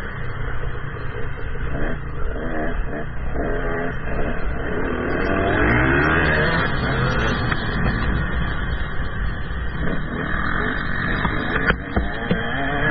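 GasGas 125 two-stroke motocross bike engine revving up and down as it rides, its pitch rising and falling repeatedly. There is one sharp knock near the end.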